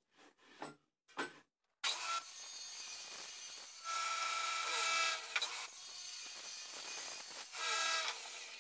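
Table saw started about two seconds in, running with a steady whine while its blade cuts through the wall of a spotted gum box pushed along the fence, the cutting sound swelling louder in two stretches. Soft handling clicks come before it.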